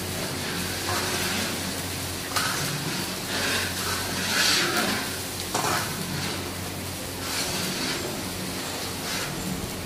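Curry mixture sizzling in a large metal wok while a long metal spatula stirs and scrapes through it. Several stronger scraping strokes come at irregular intervals from a couple of seconds in.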